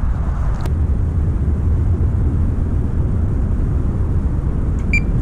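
Steady low rumble of wind buffeting the microphone. Near the end come two short high electronic beeps from a carp fishing bite alarm, the start of a run as a fish takes line.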